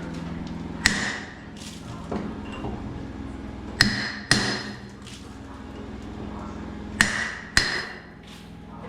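Hammer blows during door fitting: five sharp, ringing strikes at uneven intervals, two of them in quick pairs.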